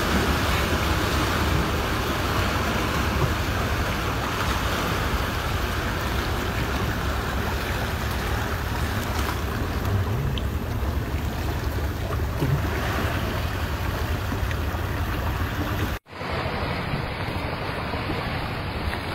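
Steady rushing of wind and surf, with wind buffeting the microphone. The noise drops out for an instant near the end and comes back duller.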